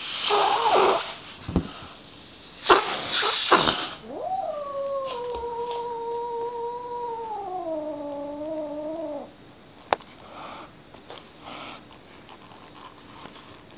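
Kitten meowing: rough, noisy calls in the first few seconds, then one long drawn-out meow of about five seconds that wavers and drops in pitch at its end.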